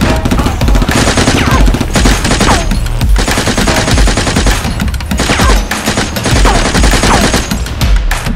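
Rapid machine-gun fire sound effects, dense bursts of shots going on without a break, with a few short falling whistles among them.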